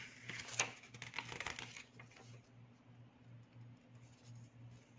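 Pages of a thin paper instruction booklet being flipped, a quick run of papery flicks in the first two seconds, then softer, sparser handling.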